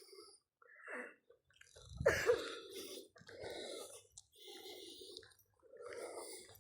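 A person's heavy, rhythmic breathing while hiking uphill, one breath about every second.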